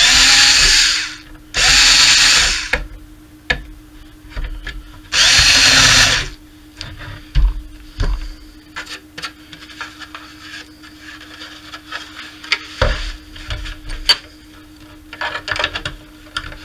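Power drill run in three short bursts of about a second each, cleaning out partly drilled holes in an aluminum plate. Scattered light clicks and knocks follow.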